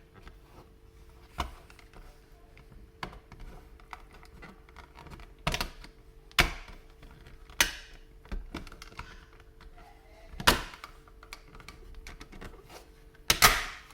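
Plastic casing of a wall-mounted garage door opener unit being handled and fitted back on: a series of sharp plastic clicks and snaps, about six, the loudest near the end.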